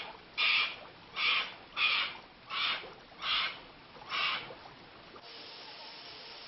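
A crow cawing six times in a steady series, about one caw every 0.7 s. After about five seconds the calls stop and a steady faint hiss is left.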